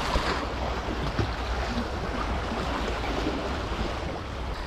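Sea water washing against the rocks, with wind buffeting the microphone as a low rumble; a short click about a second in.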